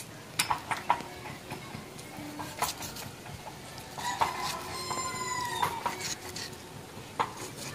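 Scattered clinks and knocks of kitchen utensils and dishes, with a chicken giving one long call about four seconds in.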